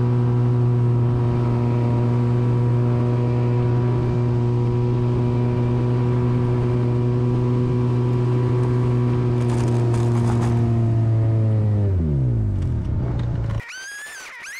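Polaris RZR 800 side-by-side engine running at a steady high speed while pushing snow with a front-mounted plow, with a brief clatter about ten seconds in. Near the end the engine's pitch falls and the sound cuts off suddenly.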